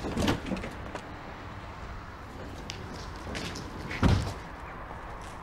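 Car door sounds: a short knock and rattle at the start, then the door shut with a deep thud about four seconds in, the loudest sound, with faint handling clicks between.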